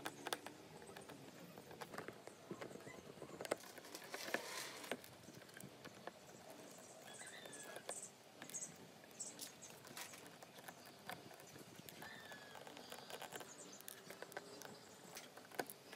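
Small precision screwdriver working screws out of a smartphone's inner frame: faint, scattered clicks, ticks and light taps of metal on the screws and plastic.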